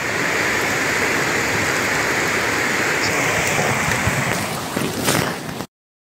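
Steady rushing noise of fast-flowing flash-flood water, which cuts off suddenly near the end.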